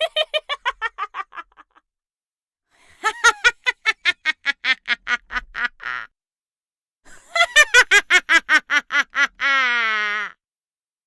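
Witch's cackling laugh: high-pitched rapid "heh-heh-heh" pulses in three bouts, the last ending in a long falling note.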